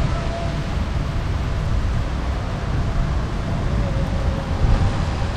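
Wind buffeting the microphone over a steady hiss of rain and wet road.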